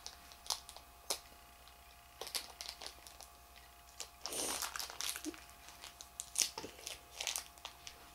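Crinkling and crackling of a small foil-plastic Shopkins blind bag being pulled and twisted by a child's fingers as she tries to tear it open by hand. The crackles are scattered and irregular, with a louder one about halfway through.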